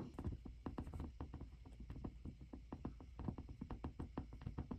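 Faint, fast, irregular light clicks of a Dupli-Color touch-up paint pen's fine tip tapping and dabbing on a car hood's paint, several a second, over a low steady rumble.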